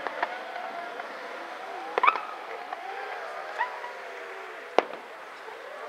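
Aerial fireworks shells bursting: about five sharp bangs spread over a few seconds, the loudest about two seconds in and near the end.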